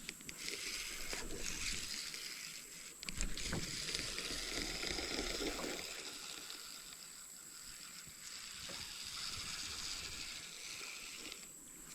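Water rushing and splashing around a kayak on a creek, with a few light knocks. The sound swells just after the start and fades near the end.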